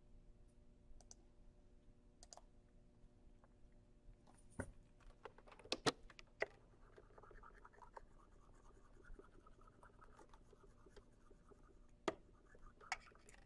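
Faint, scattered clicks of computer input, with a soft scratching for a few seconds in the middle; otherwise near silence.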